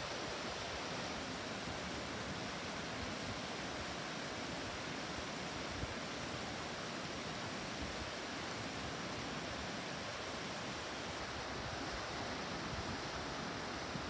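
Steady rush of stream water pouring over a low weir.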